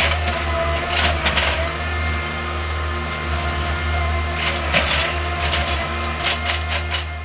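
Small on-track rail maintenance machine running along the track, its engine giving a steady low hum, with sharp metallic clanks and clinks at intervals, a cluster about a second in and another a little past the middle.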